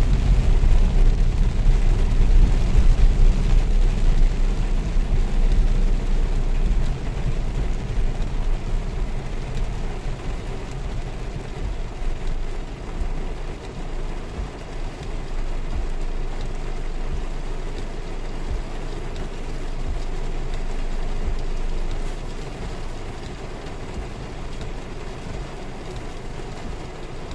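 Heavy rain heard from inside a car's cabin: a steady low rumble of the moving car, louder for the first several seconds and easing as the car comes to a halt at a light, under the hiss of rain on the roof and windshield.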